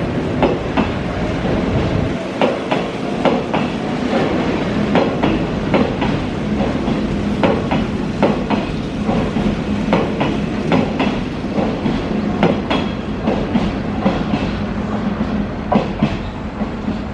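Hanshin 8000-series electric train running past, its wheels clicking over the rail joints in an uneven clickety-clack over a rolling rumble. A steady low hum joins in from about a third of the way through and fades near the end.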